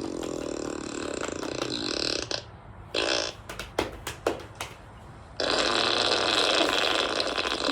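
Fart sound effects played through a phone's speaker. A long, wavering blast runs through the first two seconds or so, then come a short blast and a few sharp clicks, and another long blast starts about five and a half seconds in.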